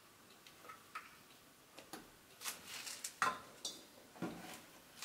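Faint, irregular light clicks and knocks from a metal dough hook being handled and set down in a stainless-steel mixing bowl. The sharpest knock comes a little after three seconds in.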